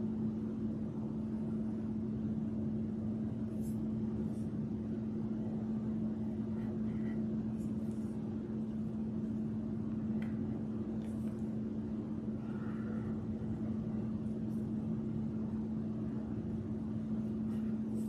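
A steady low hum with a strong even tone, over which come a few faint, brief scratches of a marker pen drawing on cardstock.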